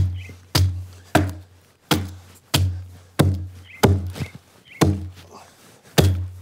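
Adze chopping into the hollow of a wooden trough, hacking out wood: about ten sharp blows in a steady rhythm, roughly three every two seconds.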